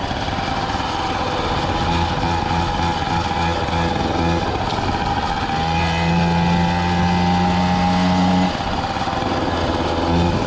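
Peugeot 103 moped's 49 cc two-stroke single-cylinder engine running while riding, its note steady with small throttle changes; a stronger, steady engine note holds for a couple of seconds and drops off sharply near the end.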